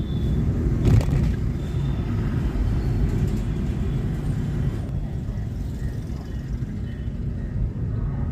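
Steady low rumble of road and engine noise from a car driving on a city street, with a single sharp knock about a second in.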